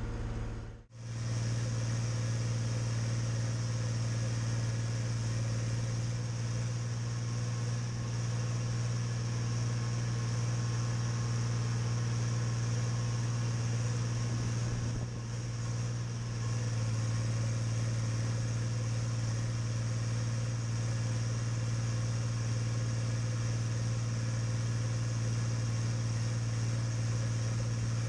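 Deutz-Fahr DX6.05 tractor's air-cooled six-cylinder diesel running steadily with a low, even drone. The sound cuts out briefly about a second in, then carries on unchanged.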